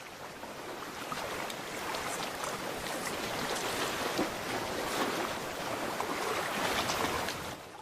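Sea water washing over a rocky shore: a steady hiss of small waves with faint splashes.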